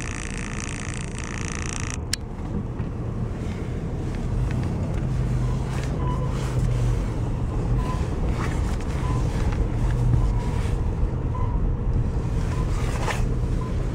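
Car engine running as the car pulls away and drives slowly, a low steady rumble that grows a little louder. A higher hiss over the first two seconds stops with a click.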